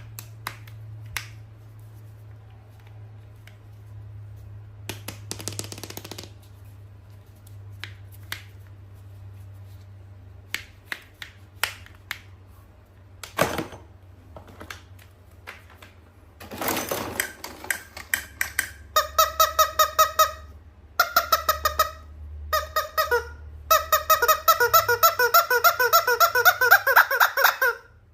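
Scattered small clicks and taps of a toy and its packaging being handled, then from about two-thirds of the way in a toy giving off rapid runs of repeated squeaky tones that start and stop several times. The last and longest run rises slightly in pitch.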